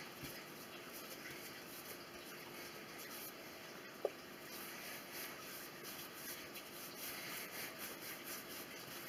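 Hands rolling and rubbing a piece of bread dough on a floured countertop, a faint soft rubbing. A single brief chirp about four seconds in.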